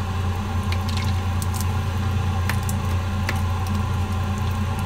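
Steady low mechanical hum in a kitchen, with scattered short clicks and pops from around a pot of soup on the stove.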